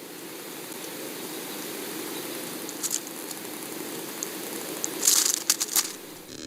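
Steady hiss with scattered short rustles and crackles, most of them bunched together about five seconds in.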